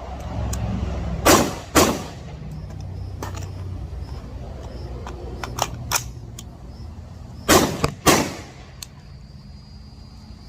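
Compensated AR-15 rifle firing four shots, two quick pairs about six seconds apart, each crack with a short ringing tail. A few fainter sharp cracks fall between the pairs over a steady low rumble.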